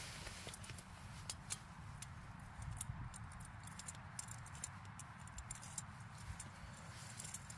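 Faint, irregular sharp clicks and taps, more frequent in the second half, over a steady low rumble.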